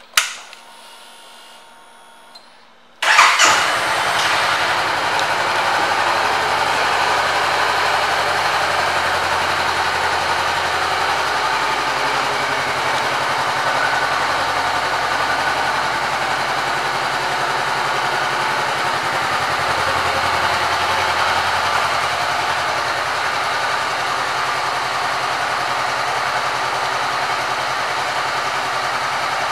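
Ignition switched on with a click and a faint hum, then the 2014 Honda CBR500R's parallel-twin engine starts about three seconds in and idles steadily.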